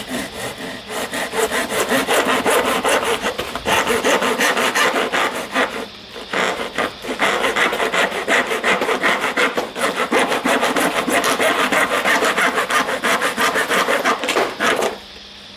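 Handsaw sawing back and forth through a polymer drainage channel and its plastic grate in one cut, in steady rasping strokes. There is a brief pause about six seconds in, and the sawing stops near the end.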